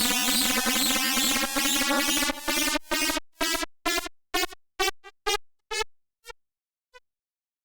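Raw synthesized electronic tones generated in ArtMatic Pro: a dense, warbling chord of tones that, about two seconds in, chops into a stuttering series of short pulses, each fainter than the last, fading out near the end.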